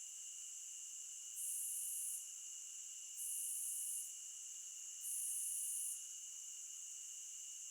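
Insect chorus: a steady high-pitched trilling, with a higher, louder trill coming in three times for just under a second each, evenly spaced.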